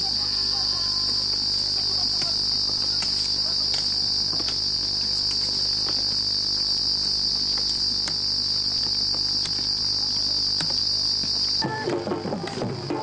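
Insects trilling in a steady, high-pitched, unbroken chorus. It cuts off suddenly near the end and gives way to music with drumming.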